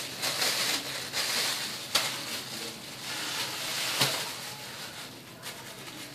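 Thin plastic bags crinkling and rustling as they are pulled on over conditioner-coated hair and tugged into place, with sharper crackles about two and four seconds in.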